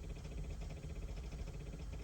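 Fuel pump relay and powertrain ignition relay on a 2008 Corvette C6 chattering in a rapid, steady ticking. The relays are tripping out over and over, on a car that won't crank or start and has no communication with its ECM.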